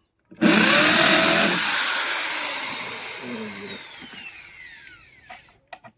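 A power tool's motor starts abruptly, runs at full speed for about a second, then is released and winds down over several seconds, its whine falling steadily in pitch.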